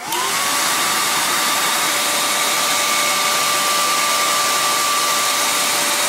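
RV gas furnace's 12-volt blower motor and squirrel-cage fan switched on, quickly spinning up to a steady whine over a rush of air. It runs smooth, which the owner takes as a good sign that the fan was not damaged by the mouse that had jammed it.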